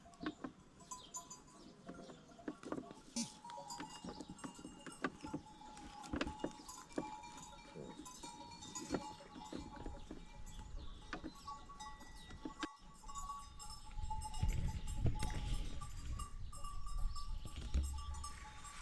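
Sheep bells clanking and tinkling irregularly as a flock moves along. A low rumble joins in for the last few seconds.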